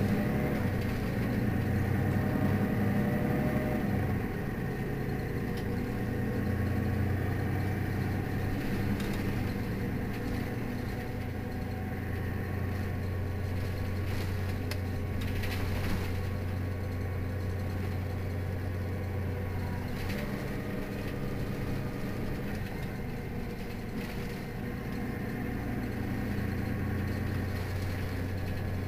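Mercedes-Benz Citaro city bus engine idling steadily with a low, even hum, with a few brief clicks about halfway through.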